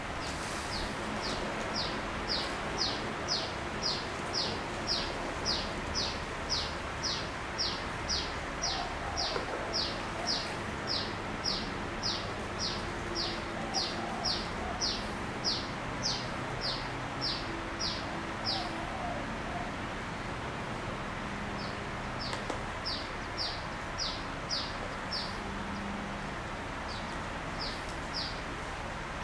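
A bird calling: a short, high, falling note repeated about twice a second in a long run, which breaks off about two-thirds through and returns in two shorter runs, over a steady background hiss.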